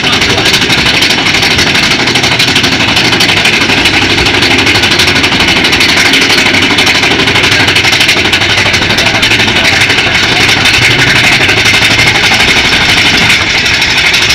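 Big Thunder Mountain Railroad mine-train coaster running along its track, heard from on board: a loud, steady rush and rumble of the cars' wheels on the rails.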